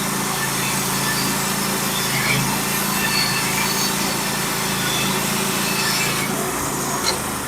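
Band sawmill running, its engine humming steadily while the band blade cuts through a white pine log with a steady hiss; the hiss thins a little near the end.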